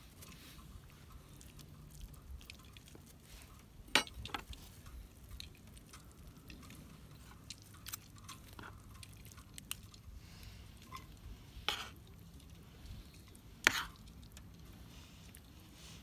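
Metal spoon and fork scraping and tapping on a wooden plate as taco rice is mixed and scooped into a metal bowl. A few sharp metal clinks stand out above the softer scraping.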